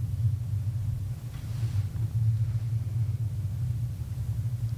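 Pause in a talk: a steady low background hum through a podium microphone, with no speech, and a faint soft rustle about a second and a half in.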